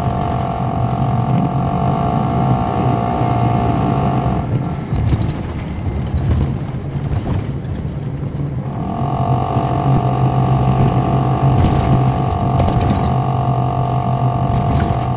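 Interior sound of a 2007 MCI D4500CL coach on the move, heard from inside the cabin: the Caterpillar C13 ACERT diesel engine running with a steady low hum and a higher whine. The whine fades out about four seconds in and returns a few seconds later.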